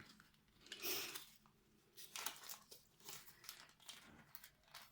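Faint crinkling and rustling of small plastic bags of craft embellishments being handled, in several short rustles, the loudest about a second in.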